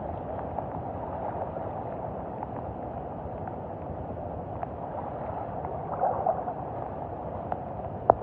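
Floodwater sloshing and gurgling around a bicycle's wheels and the rider's legs as it is pushed through water up to the hubs, a steady wash with scattered faint ticks and a brief swell about six seconds in. A sharp click just before the end is the loudest moment.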